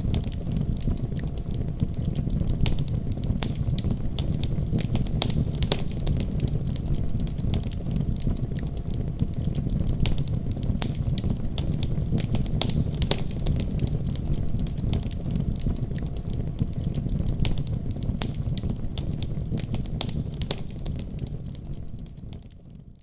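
Fire burning in a fireplace: a steady low rumble of flames with frequent sharp crackles and pops, fading out near the end.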